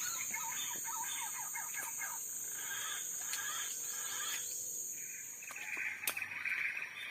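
Forest ambience: a steady high insect drone with scattered bird chirps, joined about five seconds in by a loud, continuous shrill insect buzz. A single sharp click comes a little after that.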